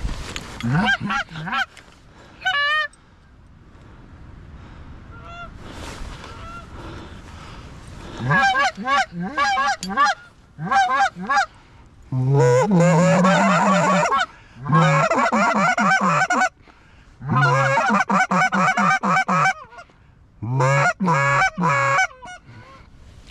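Geese honking and clucking: a few calls at first, then from about a third of the way in, rapid, excited runs of loud honks in several bursts of a second or two each.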